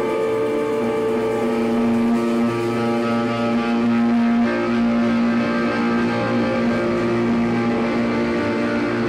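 Electric guitars ringing out long, sustained droning notes at several pitches, with a steady low drone underneath.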